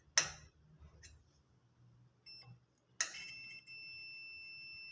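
A click, then about three seconds in a multimeter's continuity tester starts a steady, high-pitched beep with a brief break. The beep means the meter is reading continuity through the microwave's high-voltage capacitor, the sign that the capacitor is shorted.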